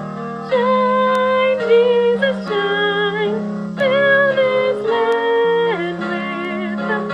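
A woman singing a song into a microphone over steady instrumental accompaniment, holding long notes that change pitch every second or so.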